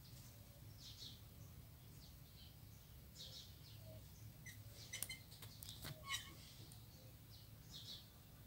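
Near silence with a bird chirping faintly about once a second, and a couple of soft clicks about halfway through.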